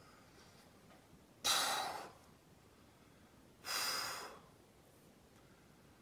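Two forceful exhales from a man, about two seconds apart, each starting suddenly and fading within about half a second.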